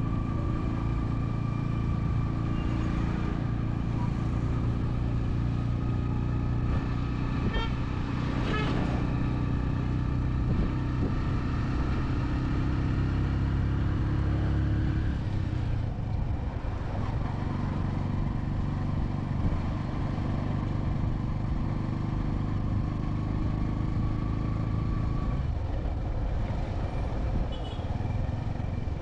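Road traffic: vehicle engines running close by, with a steady engine hum that thins out about halfway through.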